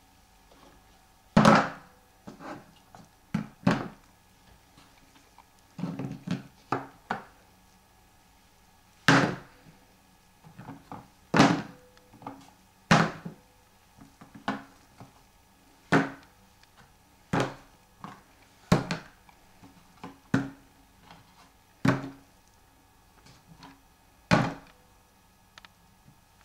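Small plastic cubes knocking as they are picked up off a wooden tray and dropped one at a time into plastic bowls. A brief sharp knock comes every second or two at an uneven pace, some in quick clusters.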